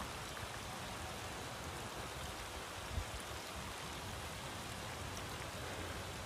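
Steady hiss of light drizzle and wind, with one soft knock about three seconds in.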